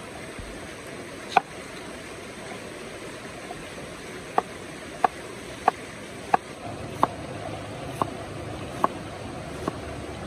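Broad-bladed knife chopping an onion on a wooden cutting board: one chop, then after a pause a run of sharp chops about every two-thirds of a second. Under it is the steady rush of a forest stream.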